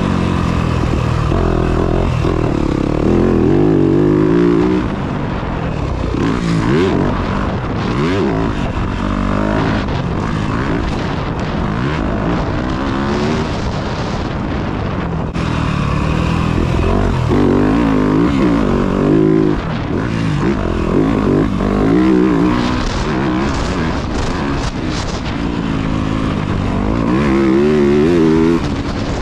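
Yamaha dirt bike engine being ridden hard, its pitch climbing and dropping again and again as the throttle is opened and closed.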